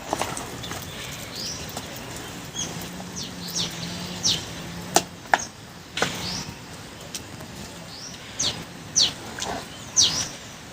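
Birds chirping: about a dozen short, high, quickly falling calls scattered through, with a few sharp knocks in between.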